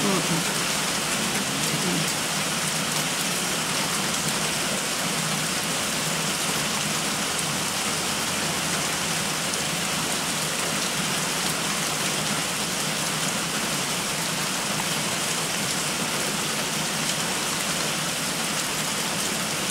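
Heavy rain pouring down steadily on forest trees, a constant even hiss that neither builds nor fades.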